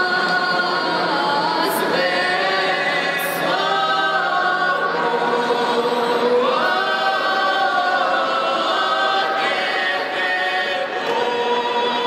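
A small mixed folk vocal ensemble, six women and one man, singing a Russian folk song a cappella. Their voices hold long notes together in close harmony, and the chord shifts every two or three seconds.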